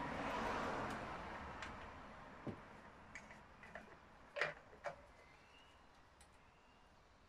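Handling sounds from the plastic housing of an Alpina ACS 46 chainsaw worked by gloved hands: a fading rustle at first, then a few short clicks and knocks, the loudest about four and a half seconds in.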